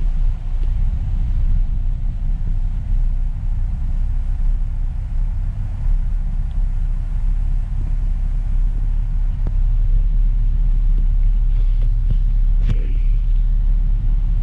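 Mitsubishi Pajero driving, a steady low rumble of engine and road noise. A brief higher-pitched sound cuts in about three-quarters of the way through.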